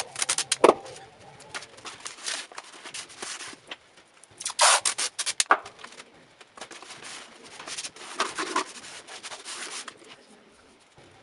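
Adhesive tape being pulled off the roll and rubbed down along the edges of a cardboard box, in a series of rasping tearing and rubbing bursts with a few sharp clicks.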